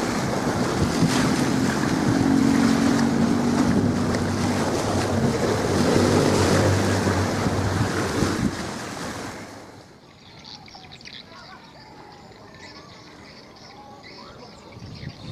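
Strong wind buffeting the microphone, a loud rushing rumble with a faint low drone under it for a few seconds. About nine and a half seconds in it drops away suddenly to a much quieter background with faint scattered sounds.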